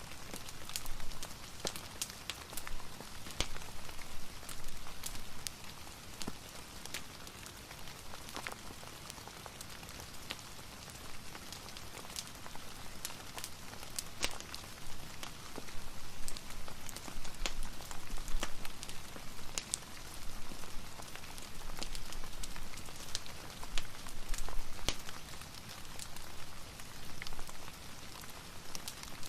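Steady rain with frequent sharp, scattered crackles and pops from a wood fire.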